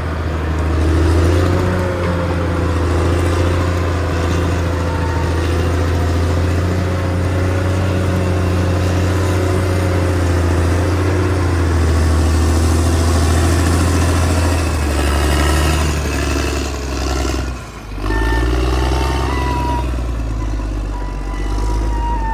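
CAT D6R XL bulldozer's diesel engine running steadily under load, a deep low hum with a whine above it. The sound drops away briefly about three-quarters of the way through, then the engine carries on.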